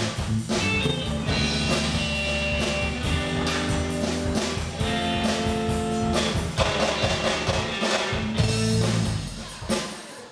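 Live band music: electric guitar over a drum kit, the piece winding down and ending near the end.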